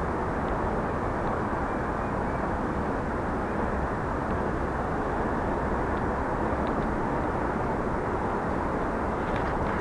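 Steady wind noise on the microphone, an even rumble at the lakeshore.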